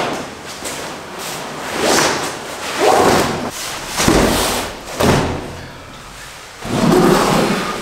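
Nylon sleeping bag rustling and swishing as it is pulled out of its sack and shaken out over an inflated sleeping pad on a wooden bunk, in several separate swishes about a second apart, with a couple of dull thumps as it lands on the bunk around the middle.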